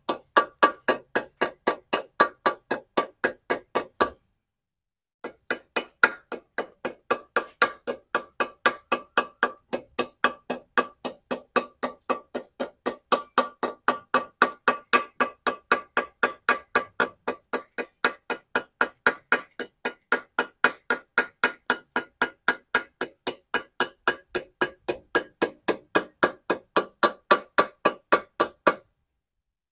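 A small hammer tapping steadily around the rim of a freshly fitted cylinder liner in an Isuzu Panther engine block, forming the liner's lip. The metallic strikes come about three a second and ring briefly. They pause for about a second some four seconds in, then run on and stop shortly before the end.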